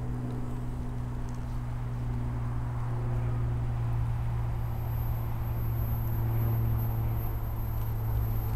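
Voith Maxima diesel-hydraulic locomotive approaching, its steady low engine drone growing slowly louder. Wind rumbles on the microphone.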